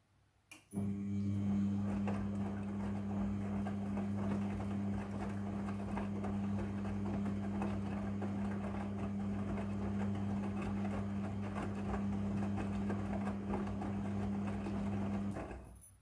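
Midea front-loading washing machine turning its drum during the wash. A click sounds about half a second in, then a steady motor hum runs under the rustle and knocks of wet clothes tumbling. It stops about a second before the end.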